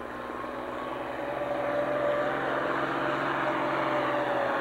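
Farm stock diesel tractor engine running hard under full load as it drags a pulling sled down the track, growing steadily louder over the first couple of seconds and then holding.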